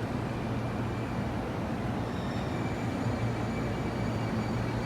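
A freight train running past with a steady low rumble and hum, and faint thin high-pitched tones over it.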